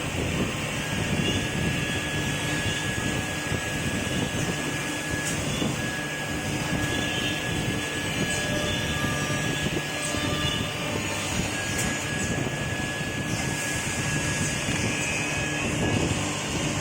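Automatic two-way wood milling and drilling machine running: a steady mechanical hum and hiss, with a thin high whine that drops out and returns a few times.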